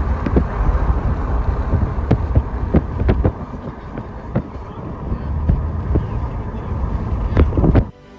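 Wind rumbling on the microphone, with scattered sharp knocks through it; the noise cuts off suddenly near the end.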